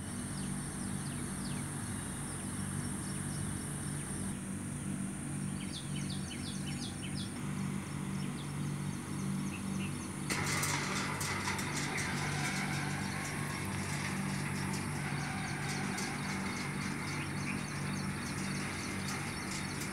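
Outdoor ambience: a steady low mechanical hum, with birds chirping a few times about five to eight seconds in. About halfway through, a brighter hiss with rapid high clicking joins.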